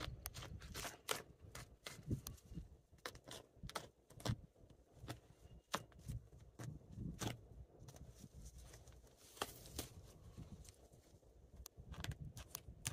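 Irregular soft clicks, rustles and small tearing sounds of a knife and hands working on a freshly killed wild turkey during field dressing.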